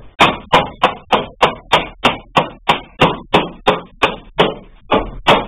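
Sharp, evenly spaced blows knocking a gold-coloured aluminium sliding-door profile along the edge of a door panel, about three a second, some sixteen in all, with a brief pause near the end.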